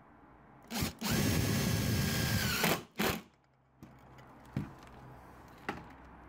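Power drill driving a self-drilling screw into the aluminium window frame: a short blip, then a steady run of under two seconds, then one more short blip as the screw is driven home.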